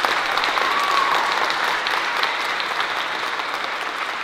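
Wedding guests applauding steadily, greeting the couple's kiss just after they are pronounced man and wife.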